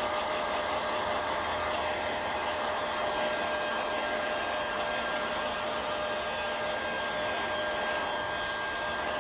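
Heat gun blowing steadily over window tint film to heat-shrink it onto the rear glass: an even rushing hiss with a faint steady whine.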